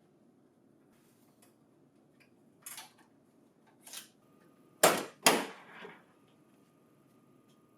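A short sequence of handling sounds from parts and packing material on a printer booklet finisher: two light rustles, then two loud sharp clacks about five seconds in, followed by a softer one.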